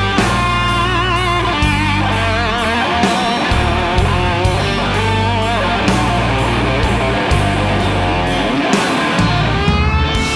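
Blues band playing live: an electric guitar lead of sustained, bent notes with wide vibrato over electric bass, drums and keyboard, with no singing.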